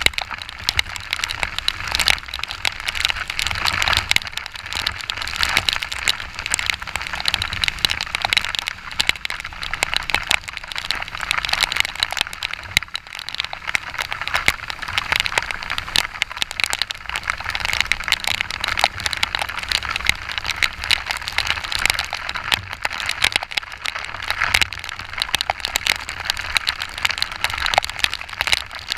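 Heavy rain pelting the camera on a moving motorcycle, a dense steady crackle of drop impacts over a low rumble of wind and motorcycle.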